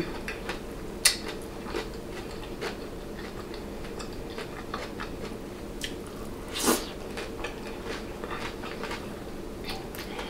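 Close-up eating: biting and chewing a fried egg roll stuffed with crab, lobster and cream cheese, with scattered small crunches and wet mouth clicks. There are two louder bites, one about a second in and one near seven seconds.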